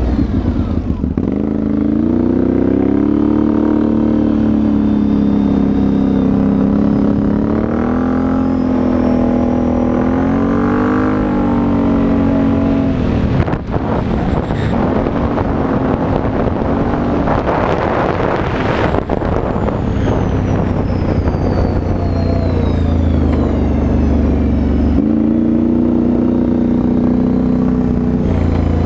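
Can-Am Renegade 850 XXC quad's V-twin engine through a Yoshimura exhaust, running under way with its note rising and falling with the throttle. The engine dips sharply about halfway through, and a rushing noise covers it for several seconds before the steady note returns near the end.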